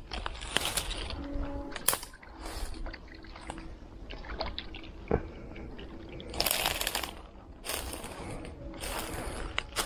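Water splashing and trickling in short bursts, with several coming about a second apart in the second half.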